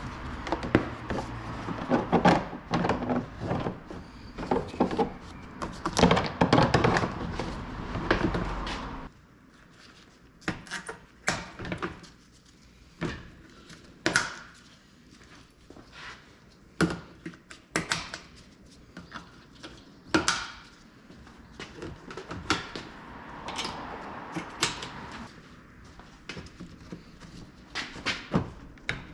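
Workshop clatter of hand tools and parts being handled: a string of sharp knocks and clicks. A steady low rumble runs under them for about the first nine seconds and then stops.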